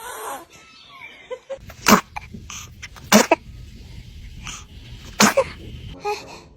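A baby sneezing three times, each a short sharp sneeze.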